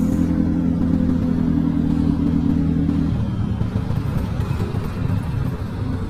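Motorcycle engine running at a steady note while riding, then the throttle closes about three seconds in. The steady tone gives way to a lower, uneven rumble as the bike slows behind traffic.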